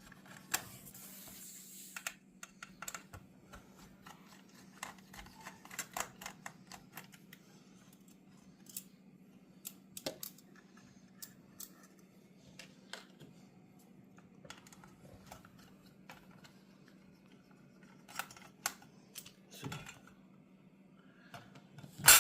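Scattered small clicks and taps of plastic parts and clips being handled and pried apart on a car radio display assembly, with one sharp, loud click at the very end.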